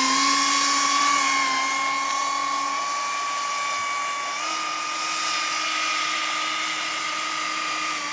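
Electric ducted fans of a large radio-controlled Boeing 747 model running with a steady high whine over a rush of air, stepping up slightly in pitch about four and a half seconds in.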